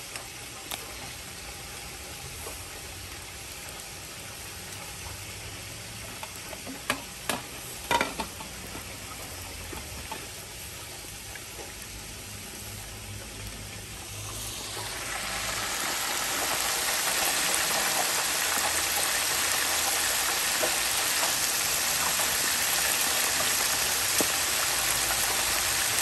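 Pork chops sizzling faintly over charcoal, with a few sharp pops about seven to eight seconds in. From about fifteen seconds the sound swells into the much louder, steady hiss of squid frying in the oil of an electric deep fryer.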